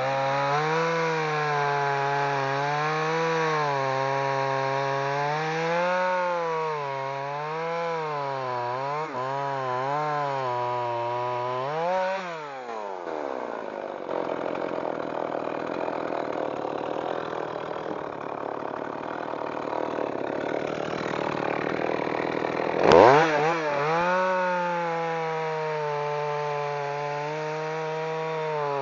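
Partner 540 two-stroke chainsaw cutting birch logs, its engine pitch wavering up and down as the chain bites into the wood. About twelve seconds in it revs up and falls back to a rougher, lower running between cuts. About twenty-three seconds in it revs up sharply and settles into the next cut.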